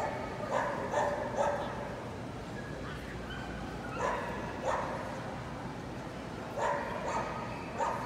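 A dog barking: three quick barks about half a second in, two more around the middle, and three near the end, over a steady background hum.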